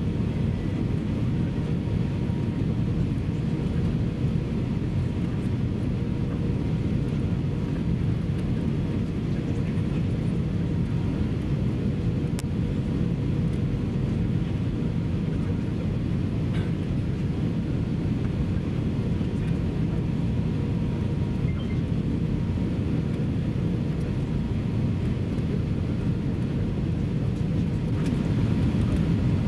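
Steady low rumble of engine and airflow noise inside the cabin of an Airbus A319 on final approach, with flaps extended, and a faint steady hum over it. It grows a little louder near the end.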